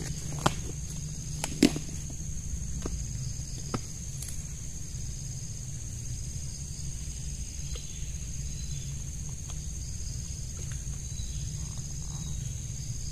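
Steady high-pitched insect drone over a low rumble, broken by a few sharp clicks in the first four seconds, the loudest about a second and a half in.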